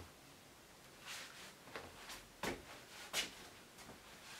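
A large wooden wall board being lifted off and handled: a soft scrape and a few light knocks of wood, two of them sharper near the middle.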